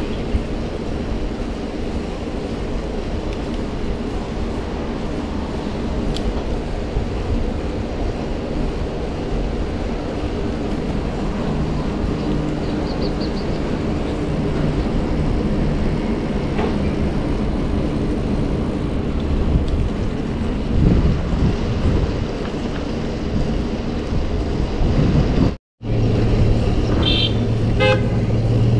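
Steady rush of wind and road noise on a chest-mounted action camera while riding a bicycle, with car traffic running alongside. Near the end the sound cuts out for a moment, then a short run of high-pitched tones sounds and a passing car's engine hums low.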